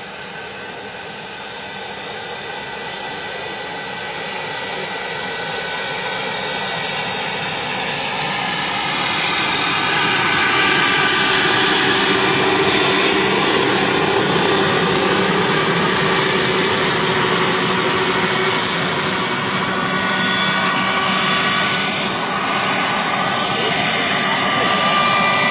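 Large RC scale EC-135 model helicopter running on its Jakadofsky Pro Turbine: a steady turbine whine over rotor and air noise. It grows louder over the first ten seconds, then holds steady.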